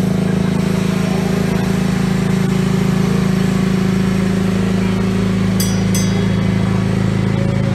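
Slow-moving parade vehicle engines running in a steady low drone as they roll past, with two brief high chirps close together about six seconds in.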